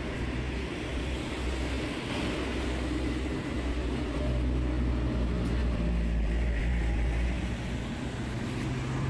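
Road traffic: a motor vehicle's engine hum and low rumble, growing louder from about four seconds in and easing off near the end.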